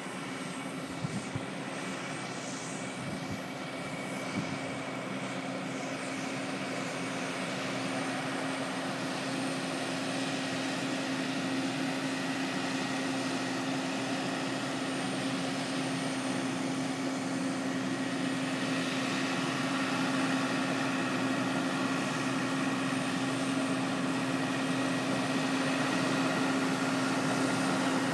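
Farm tractor engine running steadily with a droning hum that grows gradually louder.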